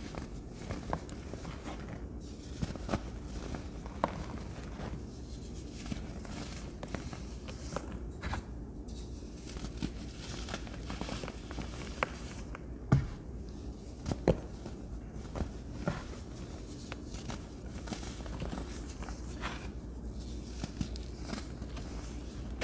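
A hand squeezes and crushes crumbly molded powder chunks, making irregular dry crunches and crackles as pieces break and powder sifts through the fingers. The sharpest crunch comes about 13 seconds in.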